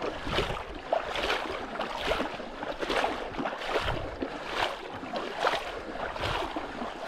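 Shallow water splashing in a steady rhythm, about one splash a second, as someone wades through it.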